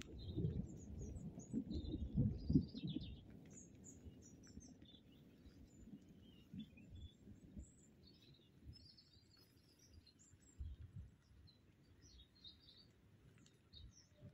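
Thunder rumbling and dying away over the first few seconds, with small birds chirping throughout.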